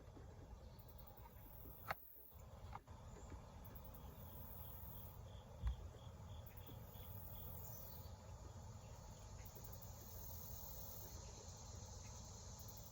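Faint outdoor ambience of insects chirping, with a few soft clicks and a light knock.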